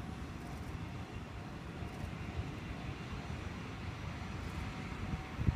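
Low, steady rumble of a distant KiHa 20 series diesel railcar, KiHa 205, its DMH17 diesel engine running as it approaches the station. A brief low thump comes near the end.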